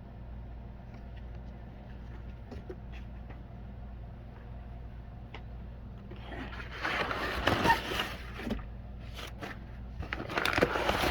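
Packaging being handled during an unboxing: a few faint clicks, then two spells of loud rustling and scraping about six and ten seconds in, over a steady low hum.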